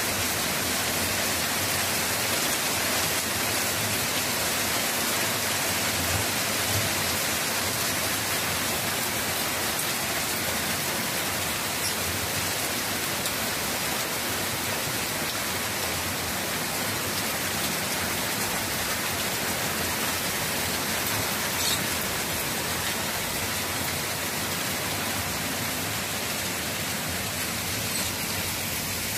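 Heavy rain pouring down steadily in an even, dense rush.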